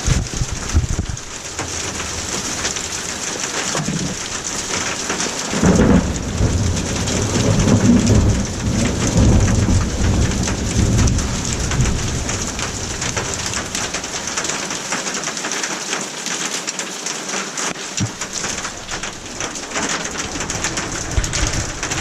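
Steady hiss and patter of a hailstorm's rain and hail. A long low rumble of thunder rolls in about a quarter of the way through and lasts several seconds.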